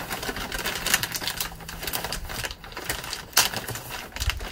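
A bag of cherry wood smoking chunks being handled: the bag crinkling and the wood chunks clacking against each other in irregular knocks as a hand rummages for one.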